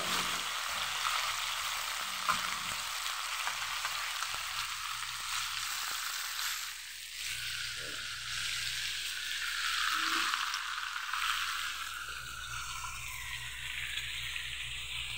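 Pieces of balbacua meat sizzling as they are sautéed in a metal pan, stirred with a metal spoon that scrapes and clicks against the pan now and then.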